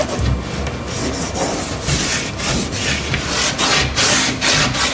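Microfiber cloth rubbing over a varnished wooden cabinet door, a run of quick wiping strokes, each a short swish.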